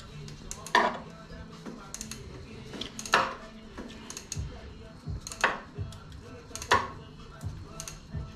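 Sharp metallic clinks of hand tools on metal parts in a car's engine bay, about five separate strikes a second or more apart, over faint background music.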